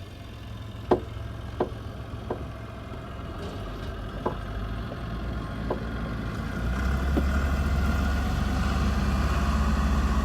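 A Chevy's engine running in two-wheel drive, heard from inside the cab. It gets louder and pulls harder about seven seconds in, and several sharp knocks come in the first seven seconds.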